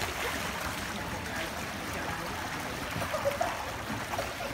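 Continuous water gurgling and sloshing at a pond's surface as a crowd of big fish feed on bread.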